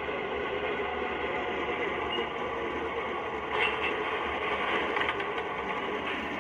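MTH O-scale R-40 subway train model running, with a steady running noise from its onboard sound system and the train on the three-rail track. A brief brighter rattle comes about three and a half seconds in.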